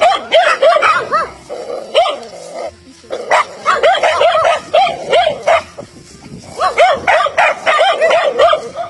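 Stray dogs barking over and over in quick runs of sharp barks, with brief pauses about three and six seconds in.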